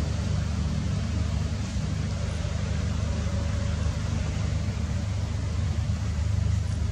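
Steady low engine rumble with a constant hiss over it, unchanging throughout.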